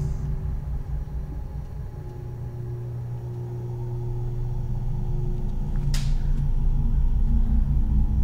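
Low rumbling drone with a steady hum and a few held low tones, slowly swelling louder over the last few seconds. It is the ambient sound design of a horror film. A brief soft swish comes about six seconds in.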